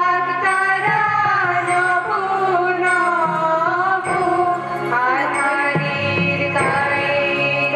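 Women singing an Indian song into microphones with instrumental accompaniment, the melody moving in long held and gliding notes.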